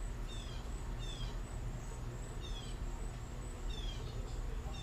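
A songbird gives five short falling chirps at uneven intervals, over a steady low rumble and a thin steady high tone.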